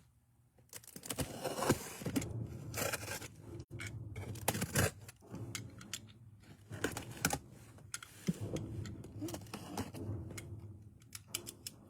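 A shipping package being handled: irregular clicks, taps and scraping, with rustling between them.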